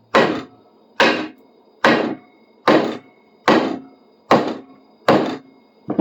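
Eight evenly spaced hammer taps, a little under one a second, driving the tang of an old drill bit into a hardwood handle to seat it.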